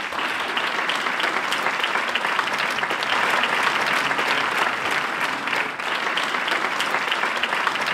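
Audience applauding in a large hall: many people clapping steadily and densely, starting just as a speech ends.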